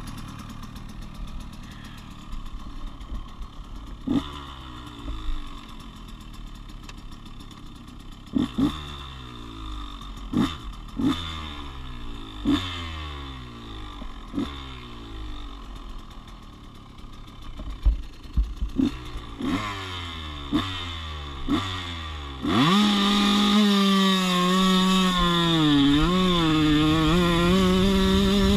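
Motocross bike engine idling at the starting gate, blipped with about eight short throttle revs that climb and fall back. About 22 seconds in, it goes to full throttle for the launch off the gate and holds a loud, steady high-rev note, with a brief dip like a gear change a few seconds later.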